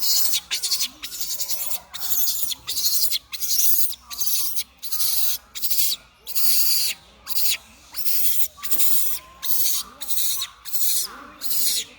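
Baby monkey crying loudly in harsh, shrill repeated cries, about two a second, with short gaps between.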